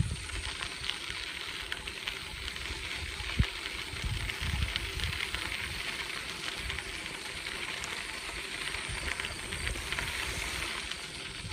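Bicycle riding along a trail: a steady crackling hiss of tyres rolling over the surface, with a single sharp click about three and a half seconds in.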